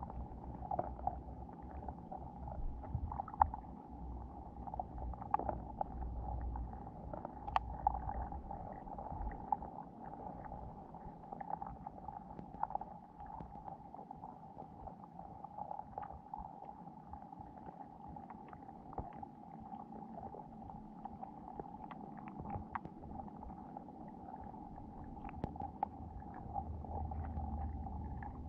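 Underwater ambience heard through a GoPro's waterproof housing resting on a sandy lake bed: a steady muffled hum with a low rumble, dotted with scattered small clicks and ticks.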